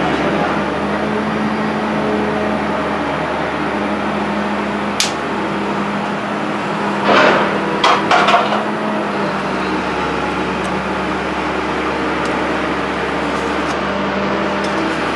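Hand tools clinking and clanking on the steel front steering knuckle of a 2001 Dodge Dakota: one sharp click about five seconds in, then a short run of clanks around seven to eight seconds in. A steady low hum runs underneath.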